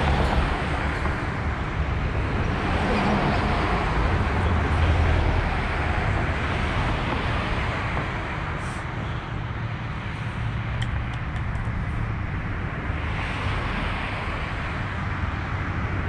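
Road traffic noise with a low engine rumble, swelling and fading as vehicles go by.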